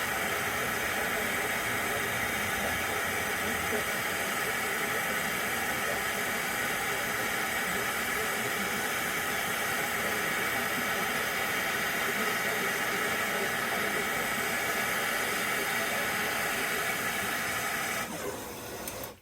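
MAP gas hand torch burning with a steady hiss, heating a copper wire joint until the copper brazing rod on it melts and flows. The hiss cuts off abruptly near the end as the torch is shut off.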